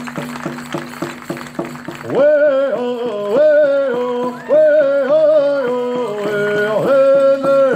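Hoop dance music: a steady, fast drumbeat over a low held tone, joined about two seconds in by a loud high singing voice holding long notes that step up and down.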